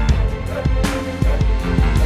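Background music with a steady beat, drums and bass.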